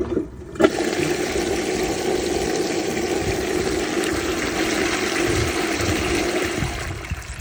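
John Douglas Lotus toilet flushing from its high tank. Water rushes in suddenly about half a second in, runs steadily for several seconds, and tails off near the end.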